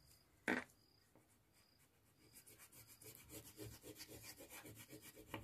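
Red wax crayon rubbed rapidly back and forth on drawing paper in scratchy colouring strokes, starting about two seconds in and getting louder. A single brief knock comes about half a second in.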